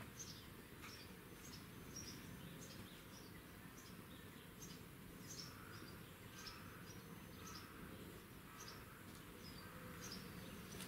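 Faint, scattered high chirps of small birds, many short calls at irregular intervals, some dropping in pitch, over a quiet outdoor background.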